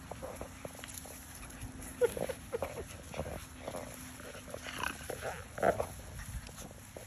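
Puppies making short, soft vocal sounds here and there as they play, with a cluster about two seconds in and another around five seconds.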